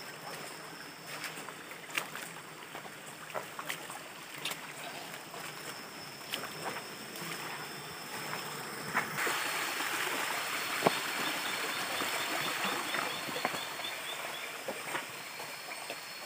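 Mountain stream rushing over rocks, growing louder about nine seconds in, with scattered sharp knocks of feet on the stones. A thin steady high tone runs above the water, and a quick run of short high chirps comes in the second half.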